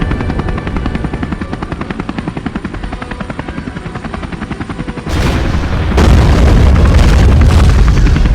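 Helicopter rotor chopping in a fast even beat over a low rumble. About five seconds in, a sudden louder rush of noise with a deep rumble cuts in and grows louder a second later.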